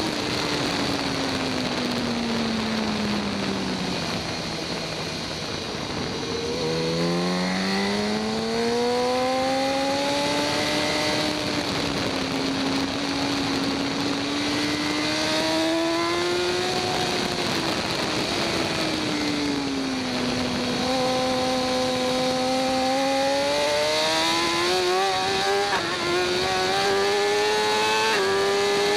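2014 BMW S1000RR inline-four superbike engine at racing pace: the engine note drops as the bike slows for a corner at the start, climbs hard out of it, holds, drops again, then climbs through quick upshifts near the end. A steady rush of wind runs under it.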